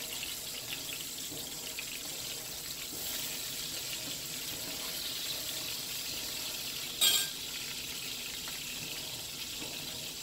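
Pollock fillets sizzling steadily as they brown in hot olive oil in a frying pan, with one sharp knock about seven seconds in.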